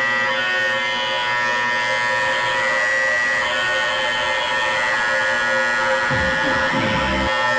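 Meditation drone: a dense, unchanging mass of many steady held tones sounding together. About six seconds in, a low wavering sound comes in for about a second and stops.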